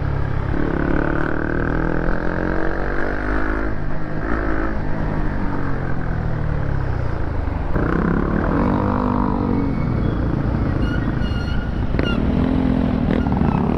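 Honda CB150R motorcycle's single-cylinder engine running under way, its pitch rising and falling several times as it speeds up and slows.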